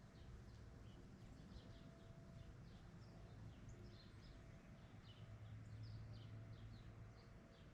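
Faint chirping of small birds: many short, high notes scattered throughout, over a low steady hum.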